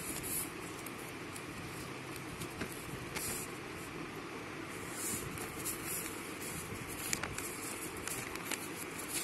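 A sheet of notebook paper rustling and crinkling as it is handled and creased into a pleated fan, with a few brief crackles.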